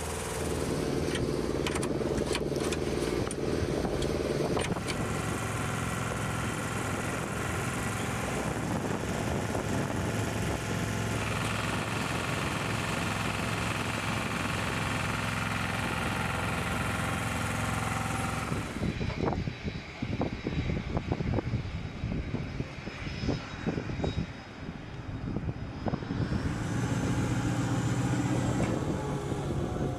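Flight-line machinery running: steady engine noise from aircraft ground support equipment and jet aircraft, its pitch and tone shifting several times. About two-thirds through it turns muffled and uneven for several seconds, then steadies again.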